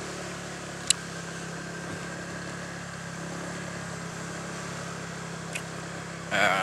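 Motorcycle engine running steadily while riding, a constant hum with a sharp click about a second in. A louder wavering sound starts just before the end.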